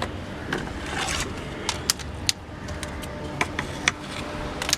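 Scattered sharp clicks and light scraping of a pipe fitting being handled while thread seal tape is wrapped around its threads, over a steady low background rumble.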